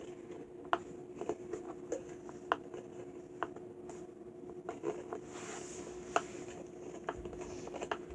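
Irregular small clicks and ticks from a table leg being turned by hand onto its metal screw, with a short soft rustle partway through.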